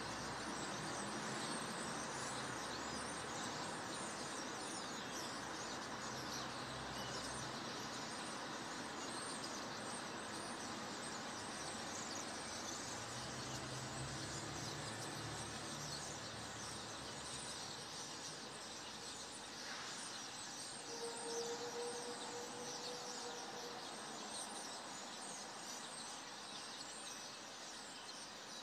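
Many small birds chirping together in a dense, continuous dusk chorus, with a low rumble of distant traffic in the first half and a brief steady tone about two-thirds of the way through.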